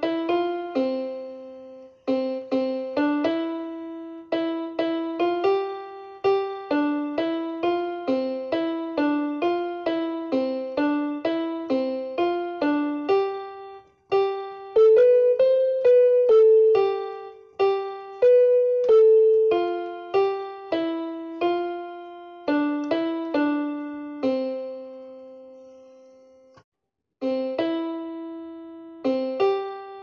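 Solo piano music: a gentle melody of single struck notes, each fading away. About 24 seconds in, a phrase ends on a held low note and there is a brief silence before the tune starts again.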